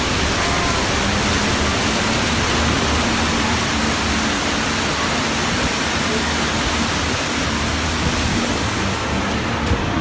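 A staged flash flood of water surging and crashing through the set, a loud, steady rush with a low rumble underneath.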